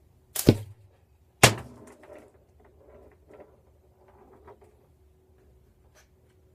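Slingshot shooting at a match target: two sharp cracks about a second apart, the second trailed by a couple of seconds of light rattling knocks as the ammo bounces and rolls, with a faint click near the end.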